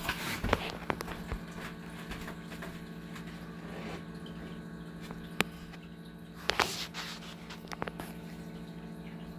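Steady low hum with a few scattered sharp clicks and small knocks, the loudest about five and a half and six and a half seconds in.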